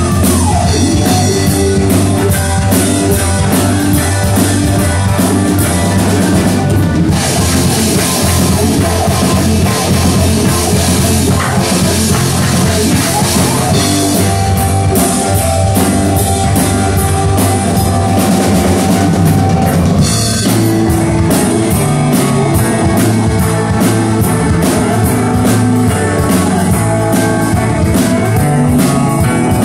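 Live rock band playing loud: electric guitars, electric bass and a drum kit, with a stretch of heavy cymbal wash about a third of the way through.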